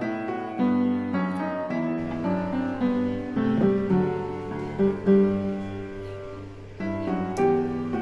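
Background piano music: a slow melody of single notes.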